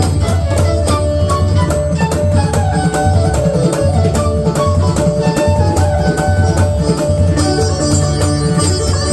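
Roland Fantom 06 synthesizer playing a Bollywood-style tone: a melody line over a steady, fast percussion beat and a heavy bass.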